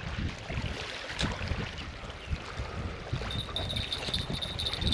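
Wind buffeting the microphone on a fishing bank, an uneven low rumble. About two-thirds of the way in, a steady high ringing from the fishing rod's tackle starts up as a fish is hooked.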